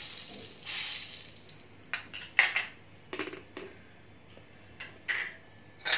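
Salt dropped into hot oil in a non-stick frying pan, hissing briefly twice in the first second. This is followed by a few light, sharp clinks of the steel spoon.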